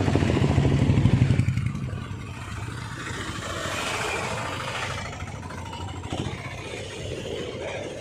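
Road traffic: a motor vehicle engine, motorcycle-like, running close and loudest in the first second and a half, then easing into steady street noise.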